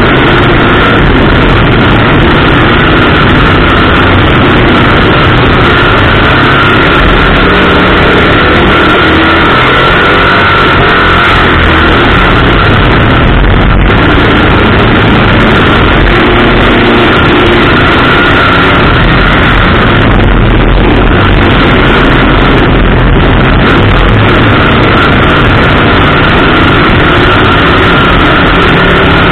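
Oval-track race car's engine running hard at racing speed, heard from a camera on the car's hood with wind rushing past. The sound is loud, steady and overloaded.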